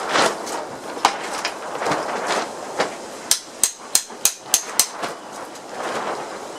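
Knocking: a few scattered sharp knocks, then a quick run of about six sharp taps in about a second and a half.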